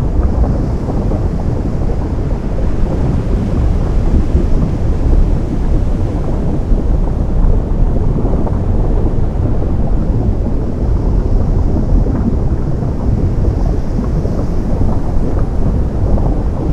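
Steady deep rumble of ocean surf where lava meets the sea, with a fine crackle throughout.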